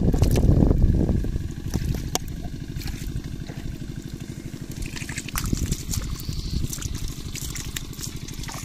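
Wet handling of live stinging catfish being shaken from a plastic bottle trap into a plastic mesh basket: water trickling and dripping, and wet fish slithering and flapping, with small splashy clicks in the second half. A low rumble is loudest in the first second or so, and a fast, even low throb runs underneath after it.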